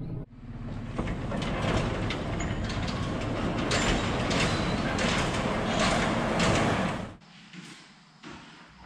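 Large steel overhead door of a metal machine shed rolling open with a steady rattling clatter, which stops abruptly about seven seconds in.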